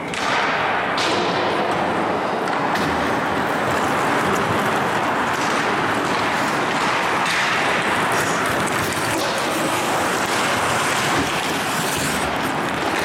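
Ice hockey scrimmage on an indoor rink: a steady hiss of skates scraping and carving the ice, with a few sharp clacks of sticks and puck.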